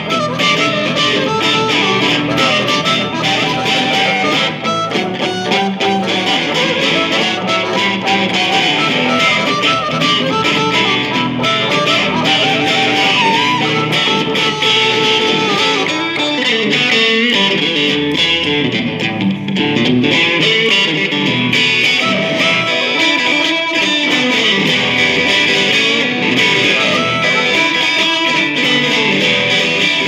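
Live blues played by a harmonica, amplified through a vocal microphone, and an electric guitar, continuously with no break.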